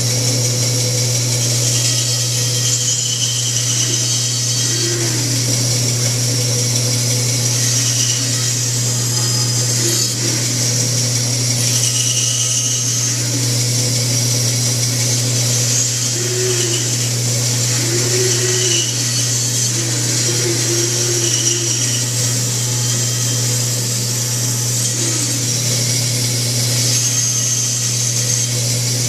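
Bandsaw running steadily and cutting a curve through a piece of wood, a constant motor hum under the hiss of the blade, with brief shifts in the cutting sound every few seconds as the wood is fed through.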